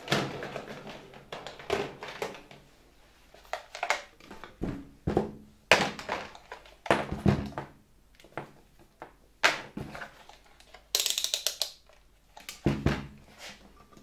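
Handling noises from a multimeter and its test leads being picked up and set up on a workbench: irregular knocks and clicks, with a short burst of rustling about eleven seconds in.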